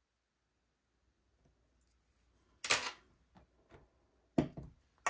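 Handling noise on a work table: two loud knocks about a second and a half apart, with lighter clicks and taps between them and a sharp click at the end.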